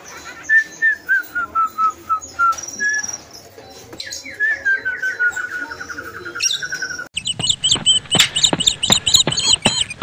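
Caged lovebirds calling: a string of short falling chirps, then about four seconds in a long, rapid chattering trill that slides down in pitch (the lovebird's 'ngekek'). Near the end come louder, higher, rapid chirps.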